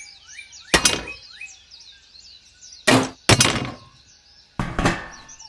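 Five sharp knocks and clinks of hard objects striking, spaced irregularly, the loudest near the middle and end. Faint bird chirping runs behind them.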